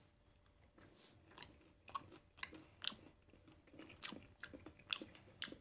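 Faint close-up chewing of a mouthful of oven-baked Hasselback potato: small irregular crunches and mouth clicks that start about a second in.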